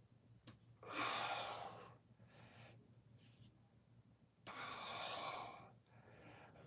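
A man's heavy breathing from exertion while lifting a weight: two long, forceful exhales about three and a half seconds apart, with shorter, softer breaths in between.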